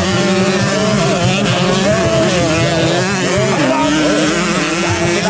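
Several racing motorcycle engines running together, their pitches rising and falling against each other as the riders work the throttle through the race.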